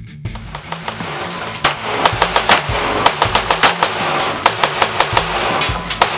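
Heavy metal music with fast, hard-hitting drums over distorted guitar and bass, growing louder about a second and a half in.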